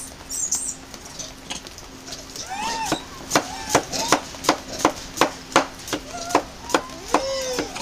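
Macaques giving short, arching coo calls. From about three seconds in, a regular run of sharp clicks, roughly two and a half a second, joins them.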